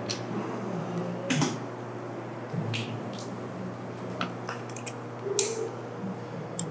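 Scattered sharp clicks and taps of hand tools on a belt conveyor's metal frame, with a hex key being fitted to the button-head bolts at the drive end. A steady low hum runs underneath.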